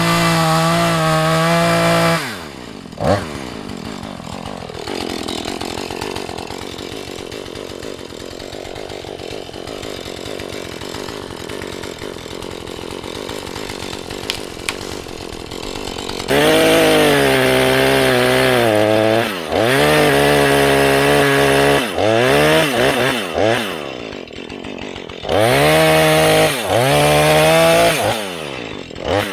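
Husqvarna 435 two-stroke chainsaw at full throttle for about two seconds, then dropping to idle for over ten seconds. It then runs at full throttle again, revs up and down several times in short blips, and runs at full throttle for a few seconds more before dropping back to idle near the end.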